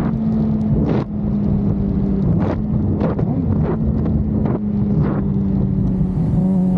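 Honda CB500 motorcycle's parallel-twin engine running at a steady, even note while riding, its pitch dipping slightly about a second in. Wind rushes over the microphone, with several short sharp buffets.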